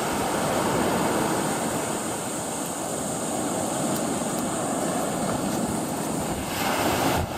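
Surf washing onto a sandy beach: a steady rush of breaking waves, with wind on the microphone.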